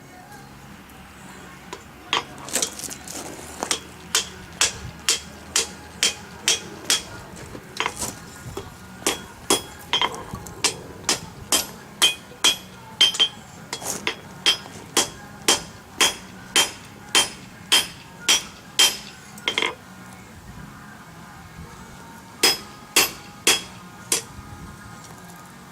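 Blacksmith's hammer striking steel on an anvil: a long run of ringing blows at about two a second, a pause, then three more blows near the end.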